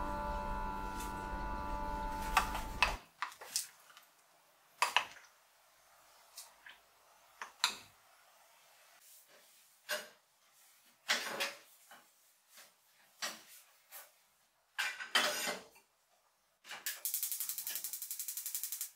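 Kitchen clatter: dishes and cutlery clink and knock in short, scattered bursts while sweets are being made. Near the end comes about two seconds of rapid buzzing that cuts off suddenly.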